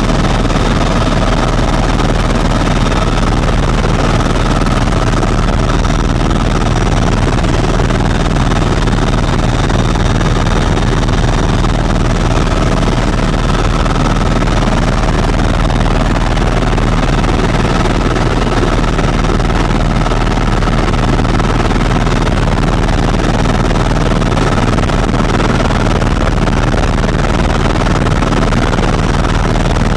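Cabin noise of a Eurocopter EC130 EcoStar helicopter in forward flight: the rotor and single turboshaft engine make a loud, steady drone with faint high whines held over it.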